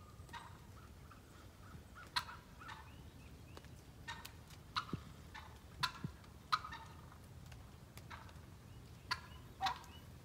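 Turkey calling: about a dozen short, sharp calls, irregularly spaced.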